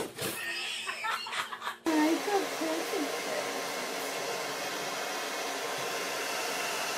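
A few knocks and clatters, then about two seconds in a hair dryer starts blowing steadily on a wet cat, with a brief wavering voice-like sound over it just after it starts.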